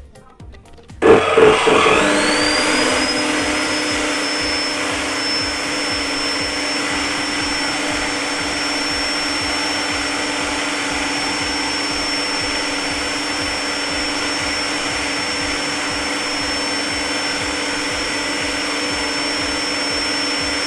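Bosch GCO 200/220 14-inch cut-off saw's universal motor switched on about a second in. Its whine climbs quickly to full speed, then it runs steadily with no load on a test run after a coil replacement, which the repairer judges to be running properly with no further issue.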